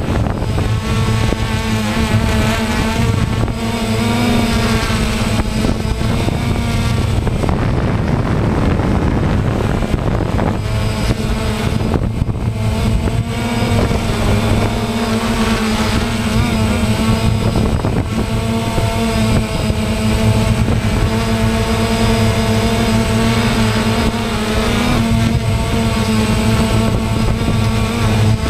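DJI Phantom quadcopter's electric motors and propellers buzzing steadily, the pitch wavering a little as the throttle shifts.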